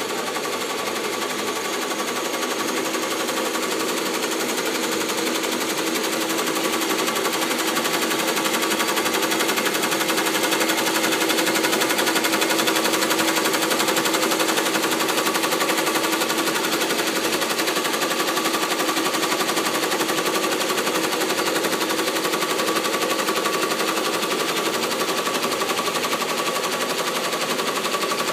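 Tajima multi-head embroidery machines stitching: a fast, steady chatter of the needle bars punching through the hooped fabric, with a constant hum under it. It builds up in the first second, then runs on evenly.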